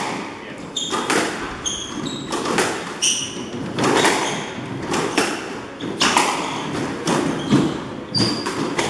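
Squash rally: the ball cracking off racquets and the walls about once a second, with court shoes squeaking on the wooden floor between shots.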